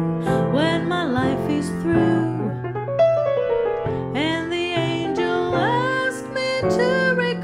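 A woman singing a slow ballad to grand piano accompaniment. Two sung phrases with sliding, ornamented notes, with the piano carrying on alone briefly between them.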